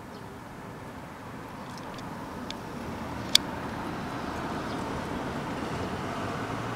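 Steady background road-traffic rumble that swells gradually louder. A few faint sharp clicks sit on top, with one loud click a little past three seconds in.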